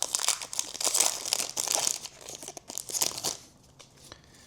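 Foil wrapper of a trading card pack crinkling and tearing as it is opened: dense crackling for about three seconds, then a few light rustles and clicks.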